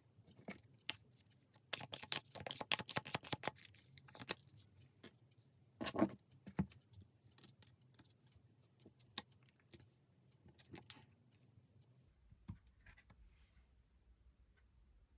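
Tarot cards being handled and shuffled: a quick run of crisp clicks and taps from about two to four seconds in, a louder knock about six seconds in, then scattered single taps.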